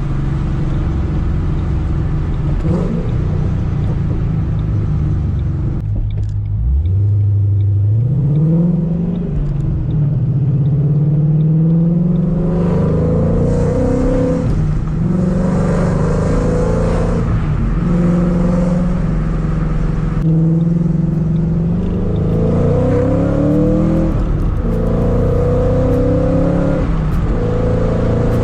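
Kenne Bell supercharged 4.6-litre three-valve V8 of a Mustang GT pulling under way, its pitch climbing several times and dropping back at each gear change.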